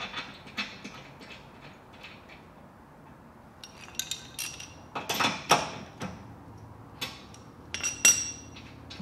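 Light clicks, then a run of bright, ringing metal clinks about four to six seconds in and a loud clink near the end: metal tools and tow-hook hardware (stud, ring, jam nut) being handled and knocked together.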